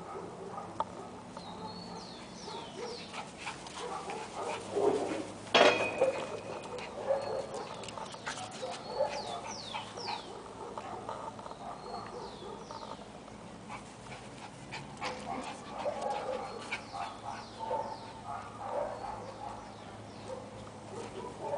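Two Lhasa apsos playing chase and play-fighting, making small dog sounds, with the loudest moment about six seconds in.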